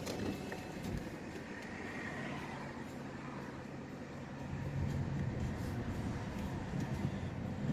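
A car running: a steady low engine and road hum that gets somewhat louder about halfway through.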